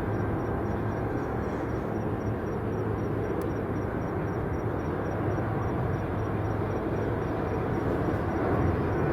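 Steady rumble of airliner jet engines.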